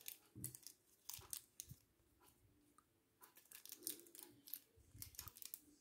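Faint, irregular crinkling and clicking of a thin clear plastic wrapper being worked off a small plastic action figure by hand.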